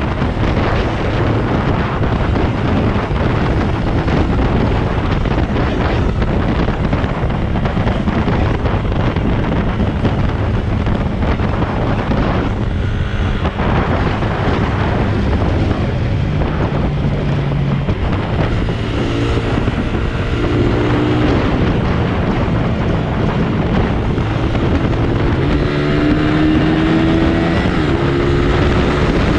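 Motorcycle engine running at highway speed under heavy wind noise on the microphone. Near the end the engine note rises as the bike speeds up.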